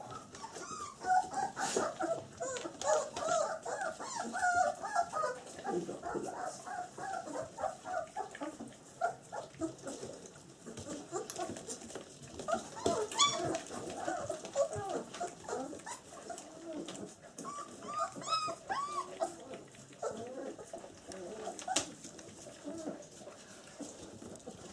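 Black German Shepherd puppies about three weeks old whimpering and squeaking, many short high calls that rise and fall in pitch and overlap, busiest in the first half.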